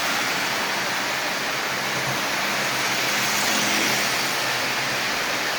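Several model trains running together on metal track: a steady rolling clatter of wheels on rail with a faint hum from the electric motors.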